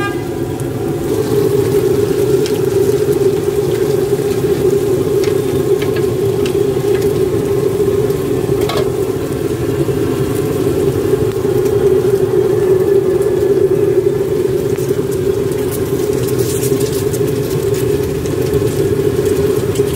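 Cubes of rice-flour cake (bột chiên) and egg frying in a wide wok of bubbling oil: a steady sizzle over a constant low rumble, with a metal spatula tapping the pan a few times.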